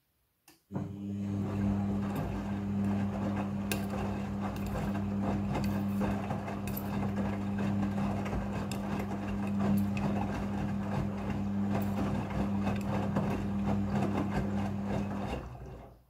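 Front-loading washing machine turning its drum during a rinse: a steady motor hum with water sloshing and wet clothes tumbling, starting about a second in and stopping shortly before the end.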